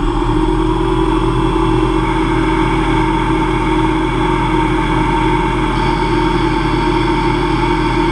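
CNC lathe spindle running steadily at 2500 RPM during a light finishing cut in aluminium, with a constant motor hum and whine.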